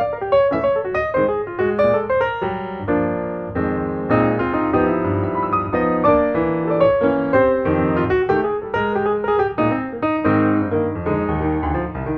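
Background music: piano playing a quick melody over chords.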